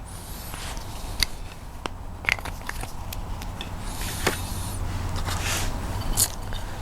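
Felt-tip marker rubbing over the steel bevel of a carving gouge, inking it before sharpening: two short rubbing strokes and a few small clicks of the tool being handled, over a low steady hum.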